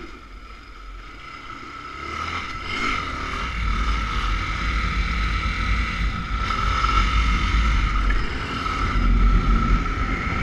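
Motorcycle engine pulled up hard into a wheelie, with heavy wind rumble on the handlebar camera's microphone. Quieter for the first two seconds, then louder and steady.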